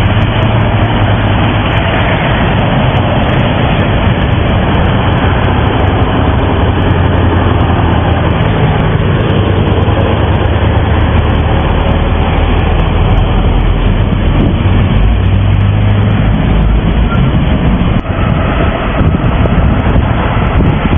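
Moscow metro train running on open-air track: a steady rumble with a low hum under a dense wash of noise. The sound changes abruptly near the end.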